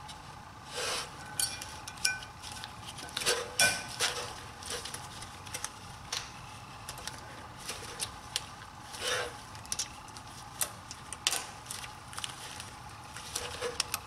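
Thin metal brake pad clips on a BMW 5 Series F10 rear caliper bracket clinking and snapping as they are pressed into place and seated. Irregular small metallic clicks and clinks, some with a brief ring.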